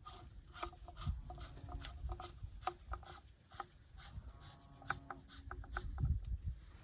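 Threaded plastic pipe fittings being screwed together, coated with thread sealant: a quick, uneven run of small clicks with rubbing and faint squeaks between them.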